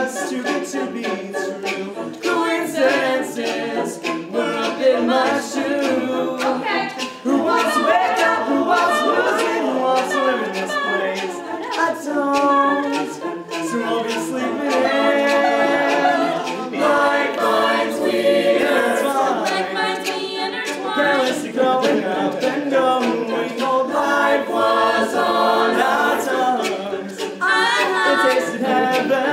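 A cappella vocal group singing in layered harmony, with short sharp clicks marking a beat throughout.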